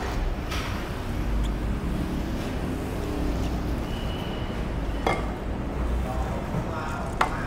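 Steady low background rumble with faint voices and two sharp clicks, about five and seven seconds in.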